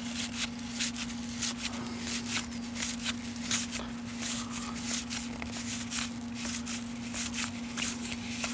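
1989 Fleer cardboard baseball cards slid and flicked one past another in the hands, a steady run of short soft clicks and rustles. A steady low hum runs underneath.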